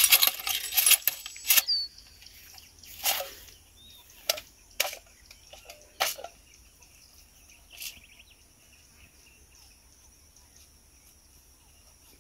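Hand jab planter (matraca) sowing corn, its metal jaws clacking as it is jabbed into the soil and opened: a quick run of clicks at the start, then single clacks every second or so, stopping about eight seconds in.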